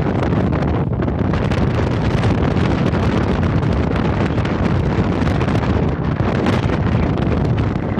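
Wind buffeting the camera microphone on an open tour boat, a steady, loud, deep rush with flickering gusts.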